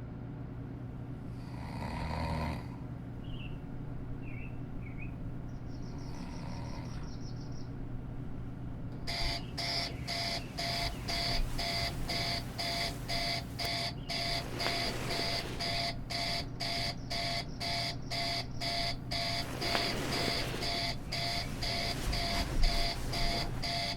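Synthetic room tone with a steady low hum and a few faint short chirps, then from about nine seconds an electronic alarm clock beeping in a fast, even, repeating pattern.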